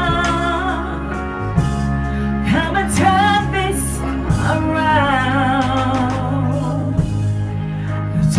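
Gospel worship song: a singer holds long, wavering notes with vibrato over sustained low instrumental chords.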